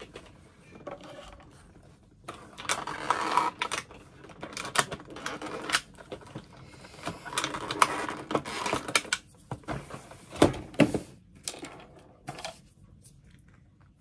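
Hands unwrapping and opening the packaging of a beauty advent calendar item: rustling and crinkling mixed with quick clicks and snaps. The loudest snap comes about ten seconds in, and the sound dies away near the end.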